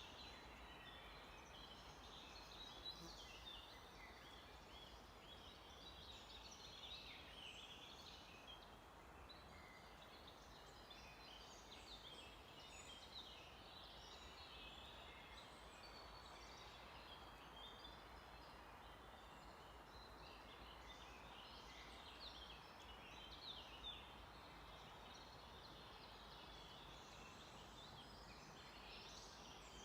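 A faint chorus of many songbirds, dense overlapping high chirps and trills, over a steady background hiss.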